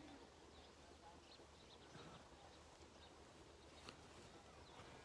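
Faint, scattered short chirps from a parrot over a steady low hum, with one sharp click about four seconds in.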